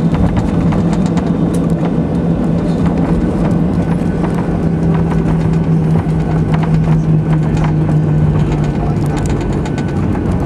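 Cabin noise of a Boeing 737-800 taxiing: its CFM56 engines running at low thrust with a steady low hum over a constant rushing noise. Scattered light clicks and rattles come and go.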